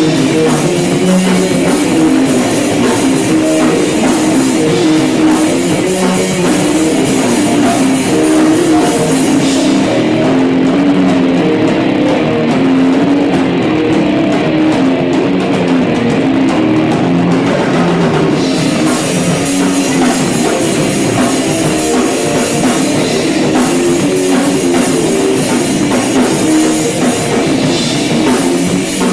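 Rock-funk band with drum kit, electric bass and electric guitar playing a passage with no words. The bright top end thins out for about eight seconds in the middle, then comes back full.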